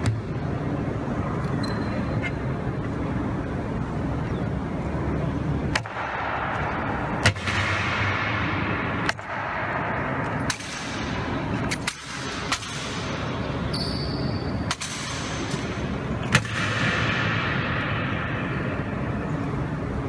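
Honor guard drill: about eight sharp cracks of rifles and boots striking in turn, each ringing out in the stone hall's long echo, over a steady background hubbub.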